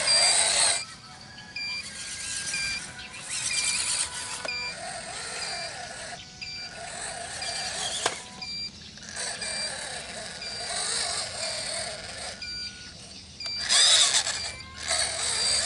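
Radio-controlled model trucks driving, their small electric motors and gearboxes whirring in bursts as they start and stop, loudest near the end. A short electronic reversing beep repeats at a steady pace.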